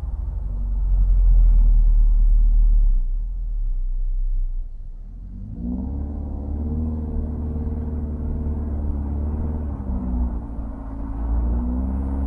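Subaru Crosstrek's 2.0-litre flat-four running through a Borla S-Type axle-back exhaust while driving, giving a deep, low exhaust rumble. The engine note climbs as the car accelerates about halfway in, holds steady, then climbs again near the end.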